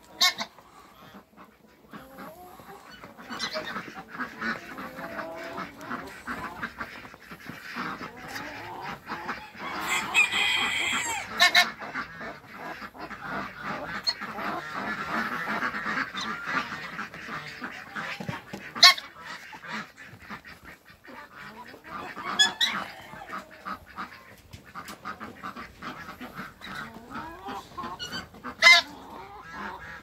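Domestic geese honking among a mixed flock of farmyard fowl, the calling going on throughout, with a few short loud calls standing out in the second half.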